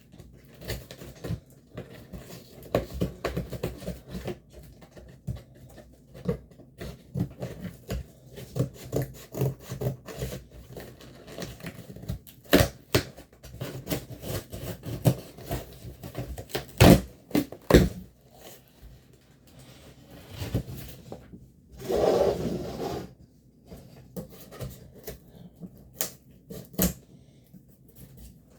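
A package being opened and unpacked by hand: irregular clicks, taps and scrapes of cardboard and packaging, with a few sharper knocks and a louder rustle lasting about a second roughly two thirds of the way in.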